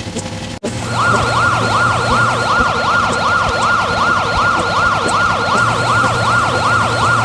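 Emergency-vehicle siren in a fast yelp, its pitch swooping up and down about three times a second. It starts abruptly about a second in, just after a steady engine-like hum cuts off.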